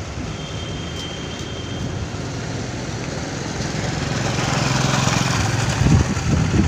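Road traffic: a motor vehicle's engine running, growing louder over the last few seconds.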